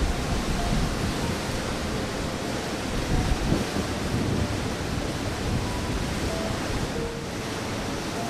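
Steady rushing of river water, with wind buffeting the microphone in low, uneven rumbles.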